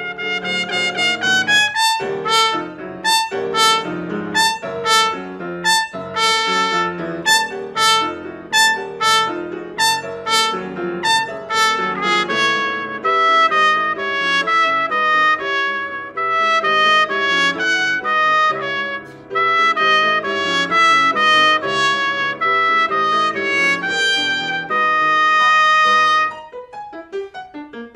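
Trumpet and piano playing together: a run of quick, detached notes in the first half, then longer held trumpet notes, with the trumpet stopping about a second and a half before the end while the piano plays on more softly.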